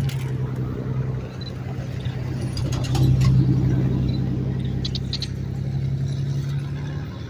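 A steady, low engine drone with a few light clicks over it, cutting off suddenly near the end.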